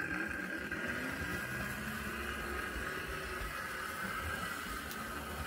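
Model train locomotive running along the layout track: a steady whir from its small electric motor and gearing.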